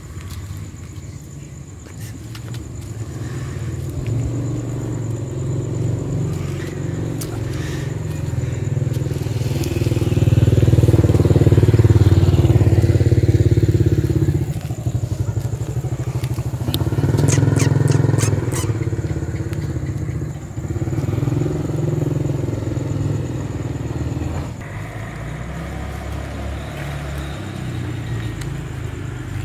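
Motorbike engine noise, a low rumble that rises and falls in loudness, loudest about ten to fourteen seconds in and again a few seconds later.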